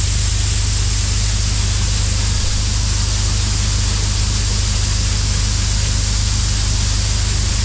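New Holland CX5090 combine harvester running steadily while unloading shelled corn from its grain tank: an even, loud machine drone with a broad hiss.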